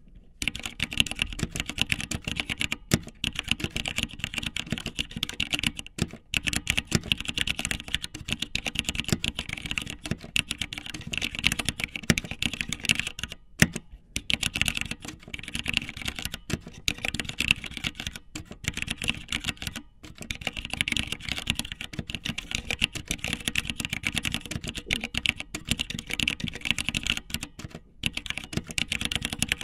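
Dense, rapid clicking, with short pauses every several seconds.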